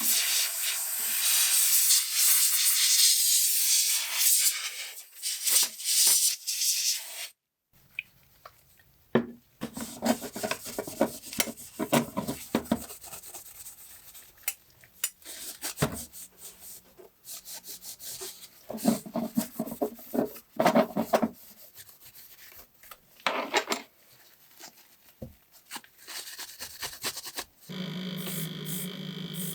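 Hand work on a small die-cast model car body in several short edited clips. A dense steady hiss runs for about the first seven seconds and cuts off. Irregular scraping and rubbing strokes follow, and a steady hum sets in near the end.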